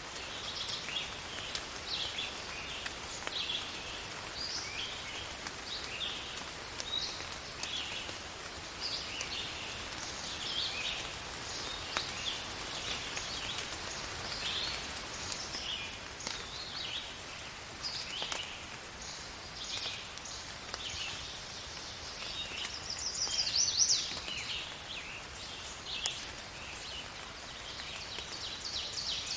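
Steady rain with birds chirping over it, short high calls repeating every second or so. Near the end one call is louder and higher than the rest.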